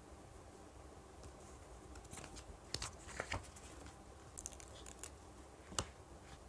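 A paper sticker sheet being handled over a journal page: a run of small crinkles, rustles and clicks, with one sharper click near the end.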